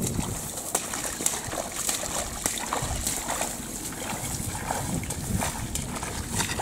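Rubber boots wading through shallow water in a flooded rice paddy, sloshing and splashing at irregular steps.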